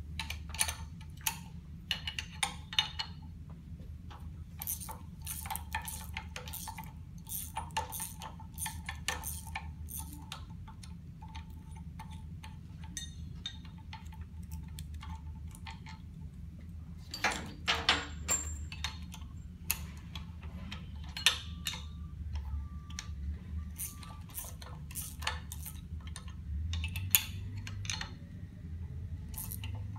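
Steel wrenches clicking and clinking irregularly against the housing-segment bolts of a rotary lobe pump as the bolts are loosened, with a denser run of clanks a little past halfway. A steady low hum runs underneath.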